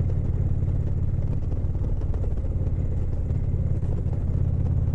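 Indian Chieftain's V-twin engine running steadily while the motorcycle cruises, a low, even rumble.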